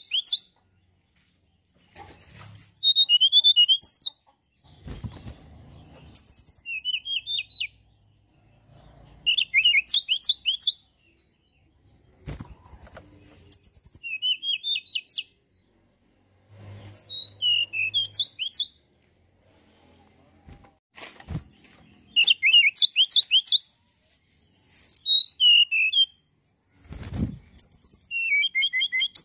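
A tledekan gunung singing: short bursts of rapid, high, sweeping chirps, each lasting under two seconds, repeated every two to three seconds with short pauses between. A few dull low thumps fall in some of the pauses.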